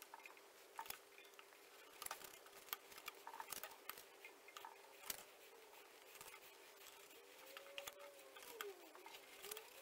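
Very faint clicks and light scraping from a hand-cranked swaging machine with offset wheels rolling a swage line into a sheet-steel repair panel, over a faint steady hum. A faint squeak rises and falls about eight seconds in.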